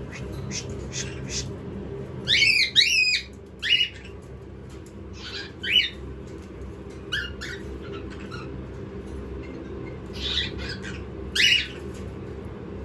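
Pet parrots squawking: short, harsh calls in scattered clusters, several quick ones together about two to four seconds in and again near the end.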